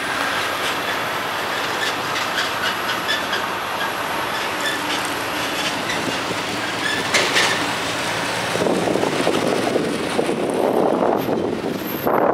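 Road traffic noise among heavy trucks: a steady rumble of tyres and engines with many rattling clicks and a faint high whine that fades after about six seconds. A brief loud clatter comes about seven seconds in, and a louder rush of road noise from about eight seconds on.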